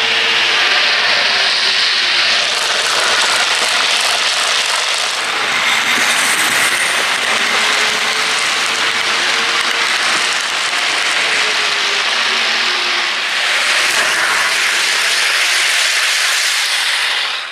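HO scale model trains running past close by: a steady rush of metal wheels on the rails, with a motor whine that slowly rises and falls in pitch as cars and a locomotive go by.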